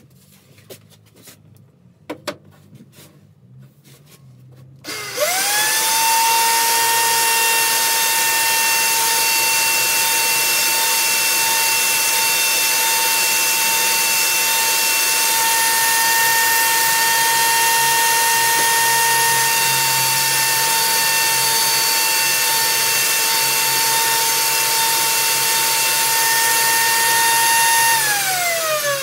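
A few knocks, then an electric router mounted under a table starts about five seconds in, spins up to a steady high whine and runs while a round wooden disc is fed around its bit. Near the end it is switched off and winds down, its pitch falling.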